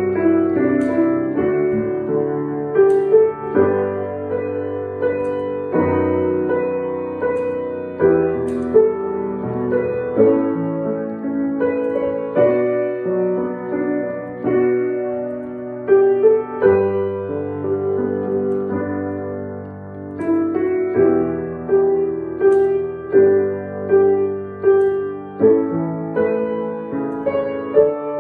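Piano being played: a steady run of struck chords and melody notes that ring on, growing softer for a moment about twenty seconds in.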